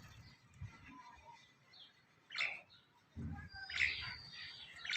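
Birds calling in short, separate chirps: one about halfway through and a cluster of calls in the second half.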